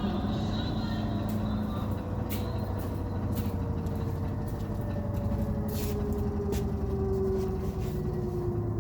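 LG commercial front-load washing machine in its final spin, running with a steady low motor hum. Over the second half a whine slowly falls in pitch, and a few sharp clicks cut through.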